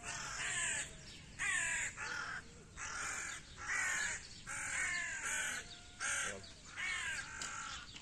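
Crow cawing repeatedly: about ten harsh calls in a row, each falling in pitch.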